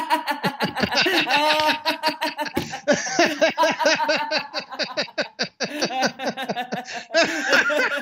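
Two men laughing heartily together in a quick run of ha-ha pulses with brief pauses, heard over a video call.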